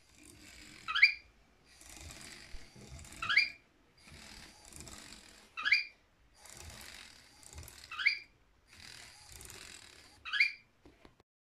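LEGO WeDo 2.0 motor whirring through the Technic gears of an inchworm robot in a repeating cycle, broken by a short, high, rising squeak about every two and a half seconds, five in all.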